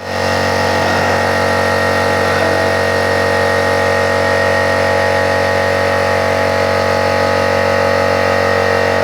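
Plasma cutter running steadily: an even electrical hum with a high whine over a hissing rush of air, unchanging throughout.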